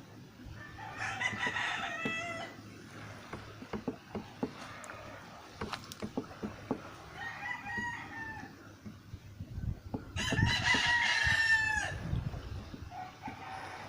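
Three drawn-out animal calls, each one to two seconds long, the last the loudest, with scattered sharp clicks between them.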